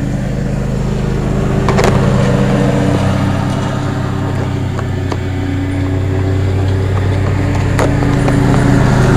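1987 Carrier Round One 3-ton central air-conditioner condensing unit humming steadily, with two sharp clicks about two seconds in and near the end. The unit has been cutting out a second after starting.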